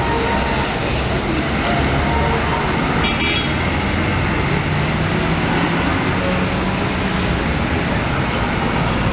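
Road traffic at a busy city intersection: cars, taxis and a small pickup truck passing, their engines and tyres making a steady rumble.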